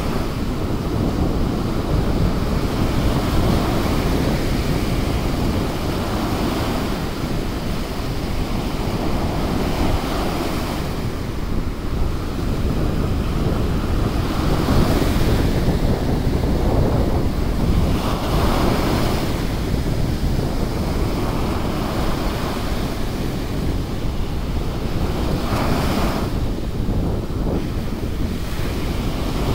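Small surf breaking and washing up a sandy beach, the rush of foam swelling every few seconds as each wave comes in, with wind rumbling on the microphone.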